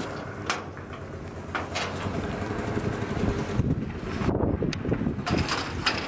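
A vehicle engine running steadily at idle, with several short metallic clanks and rattles from a sheet-metal gate being pushed open.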